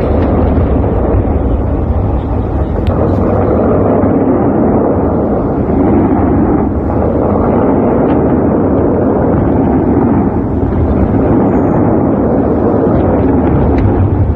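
Fireworks going off in a dense, continuous barrage, the bursts overlapping into one loud, steady rumble with no single bang standing out.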